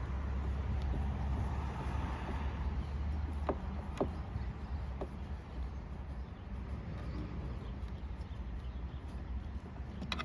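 Phillips screwdriver backing a screw out of a car's inner door handle, with a few faint metallic clicks around the middle, over a steady low background rumble.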